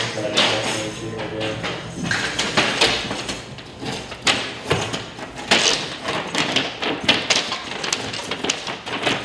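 Irregular knocks, taps and handling noises of hand work in an echoing room, with low voices in the first second or so.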